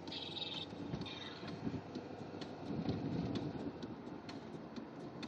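Road noise inside a moving car: a steady rumble with frequent small rattles and clicks.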